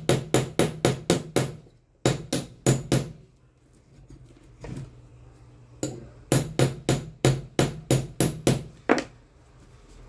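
A hammer tapping quickly on metal, about five light blows a second, comes in runs: one near the start, a short one a little later, a single blow, then a longer run near the end. The blows are struck on the shaft of an electric fan motor while seating its rotor.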